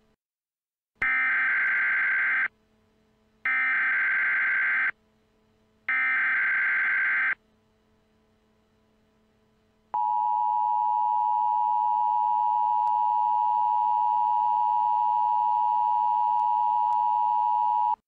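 Emergency Alert System SAME header data tones, three short warbling bursts of about a second and a half each with short gaps between, then the EAS two-tone attention signal, held steady for about eight seconds.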